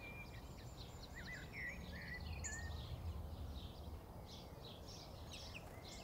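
Faint garden birdsong: several small birds chirping and twittering, with short whistled notes and a brief fast trill about two seconds in, over a steady low rumble.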